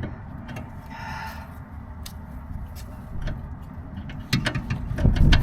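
Wind rumbling on the microphone, with metallic clinks and scrapes of a ratchet and socket being worked onto a brake caliper bolt, and a quick run of clicks near the end.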